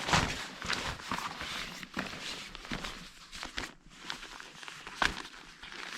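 Rustling and irregular light clicks of an inflatable sleeping pad being handled and unrolled.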